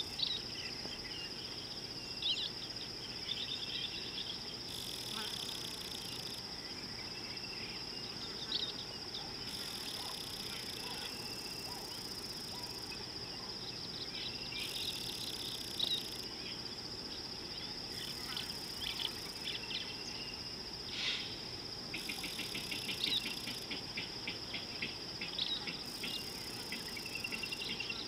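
A steady high insect drone carries on throughout, with scattered bird chirps over it and a quick rattling run of ticks a little past two-thirds of the way through.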